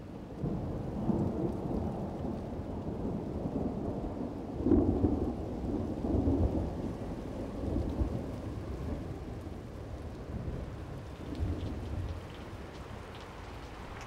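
Thunder rumbling over steady rain, swelling several times, loudest about five seconds in. Near the end the thunder fades and the patter of raindrops comes forward.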